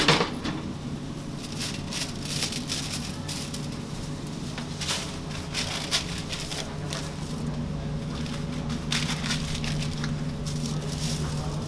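Paper sandwich wrappers crinkling and rustling as chicken wraps are handled and wrapped, in many short irregular crackles over a steady low hum of kitchen equipment. A louder clank right at the start as the lid of the foil-lined contact grill is lifted.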